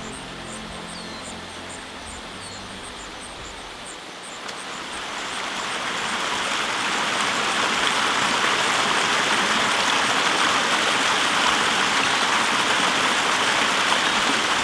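Rushing water of a waterfall, a steady hiss of falling water that swells up a few seconds in and then holds loud and even.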